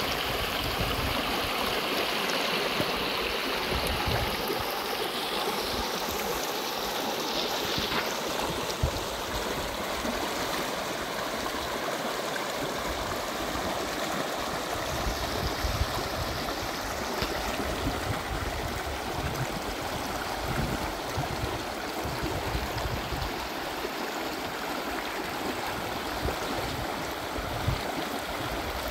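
Steady rushing of flowing water, like a stream, with a few faint sharp clicks.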